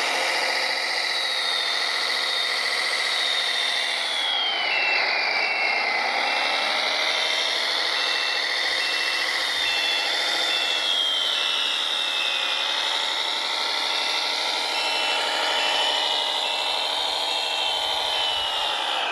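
Electric motors of a radio-controlled scale construction machine whining steadily. Their pitch sags and recovers several times as the load changes.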